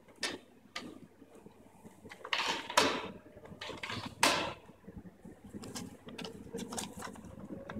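Plastic clicks, knocks and rattles as bill-dispenser banknote cassettes are handled and their guide parts are pushed and adjusted, with the loudest knocks about two and a half and four seconds in.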